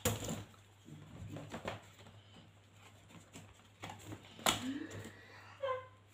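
Pieces of cardboard being handled and set down on a tabletop: light rustling and scraping, with a sharp tap at the start and another about four and a half seconds in. A brief pitched call near the end.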